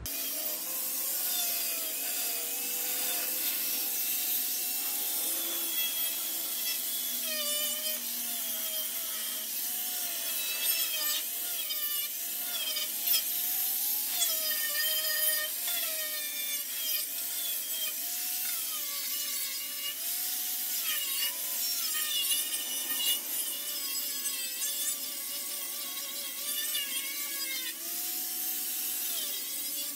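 Angle grinder grinding seam sealer and paint off car-body sheet metal to bare the spot welds. Its pitch wavers up and down as the disc bites and eases off.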